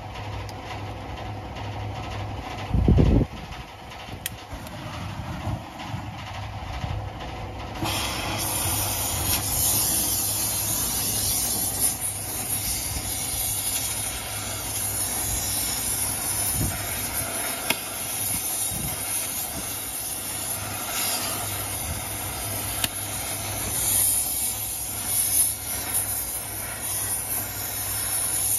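Oxy-acetylene torch: a loud pop about three seconds in as it is lit, then from about eight seconds the steady hiss of the flame as it heats a rounded-off wheel nut on the truck's hub to free it.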